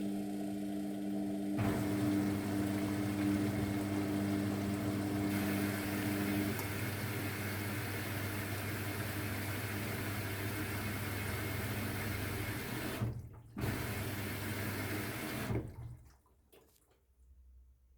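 Luxor WM 1042 washing machine filling with water for its rinse: water rushes in through the inlet, starting about a second and a half in and stopping a few seconds before the end, with a short break in the middle. A steady hum from the machine runs underneath at first and stops about six seconds in.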